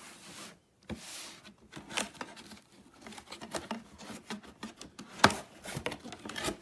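A toy box being opened and its packaging handled: scraping, rustling and irregular light clicks, with one sharper knock about five seconds in.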